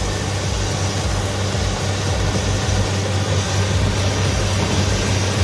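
Bulldozer diesel engine running steadily under load while pushing snow: a constant low hum under a broad hiss.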